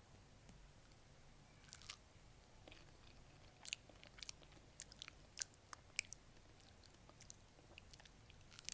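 Close-miked biting and chewing of a fresh peach: crisp, wet crunches and clicks that start about two seconds in and come irregularly, several to a second.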